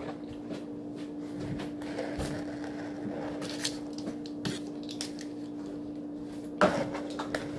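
Handling noise of plastic bowls: light knocks and scrapes, with a steady low hum underneath and one sharper knock about a second before the end.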